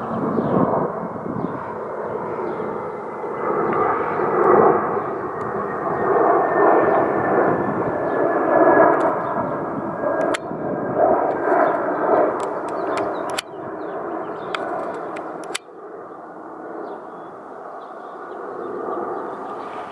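Jet airliner on approach passing overhead: a loud rushing engine noise with a thin whine that slowly falls in pitch, fading after about fifteen seconds. A few sharp clicks come near the middle.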